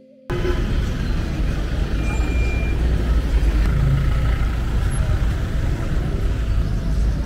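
Busy road traffic: vehicle engines and tyres passing close by, a jeepney among them, with a steady low rumble. It cuts in suddenly just after a brief end of music, and a short high whine sounds about two seconds in.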